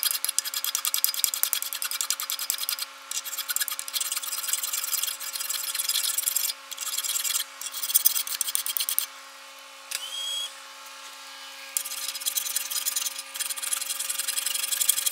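Cast aluminum being hand-filed with a coarse half-moon file for soft metals, knocking down excess weld buildup: repeated rasping strokes, with short breaks and a pause of about three seconds past the middle. A steady low hum runs underneath.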